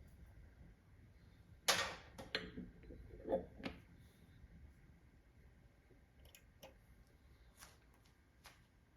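Handling noise: a cluster of sharp clicks and knocks about two to four seconds in, then a few faint ticks.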